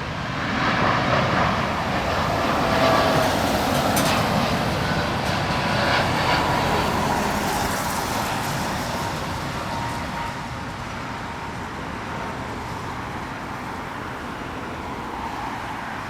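Jet airliner's engines during a departure from the runway: a broad rushing noise that swells about a second in, stays loud for several seconds with a faint whine, then slowly fades.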